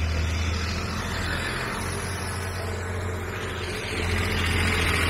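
Street traffic: a motor vehicle's engine running, a steady low rumble with tyre noise that grows slightly louder near the end.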